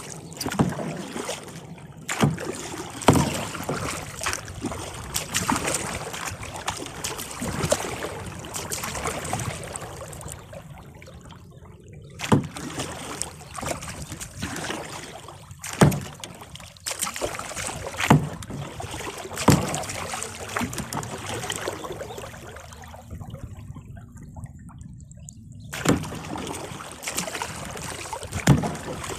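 Kayak being paddled: water splashing and swishing with each stroke, with sharp knocks every second or few seconds.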